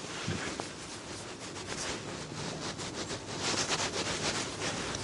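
A rag being scrunched and rubbed over a motorcycle engine case, a run of short scratchy rustles that is busiest about three and a half to four and a half seconds in.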